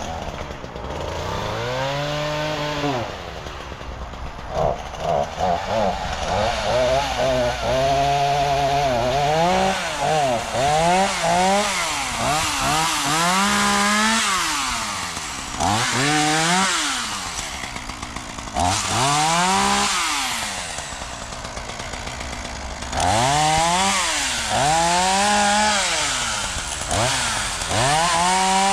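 Chainsaw engine revving up and dropping back, over and over, the pitch rising with each burst of throttle and falling between them.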